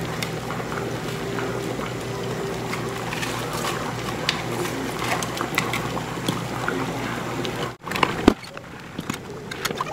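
Vegetable soup bubbling in a pot on a gas stove, a steady watery simmer with scattered light clinks and knocks of a utensil and pot. The sound drops out briefly near the eighth second, then a few sharper knocks follow.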